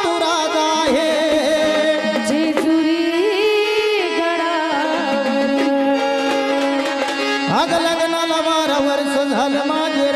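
Female voice singing a Marathi gondhal devotional folk song with gliding ornaments, over steady held accompanying notes and sambal drums struck with sticks.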